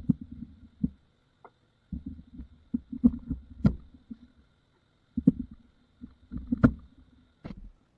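Irregular clusters of dull wooden knocks and thumps, a few with a sharp click, separated by short pauses.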